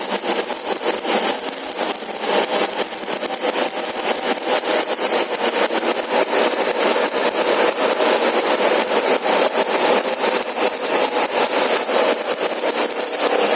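Electric arc welding: the arc gives a steady, dense crackling sizzle with no breaks.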